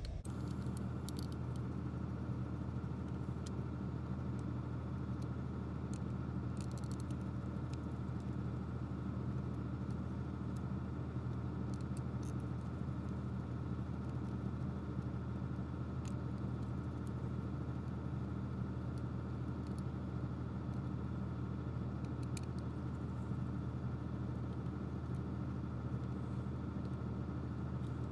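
A steady, unchanging low mechanical hum, with a few faint clicks of handling on top.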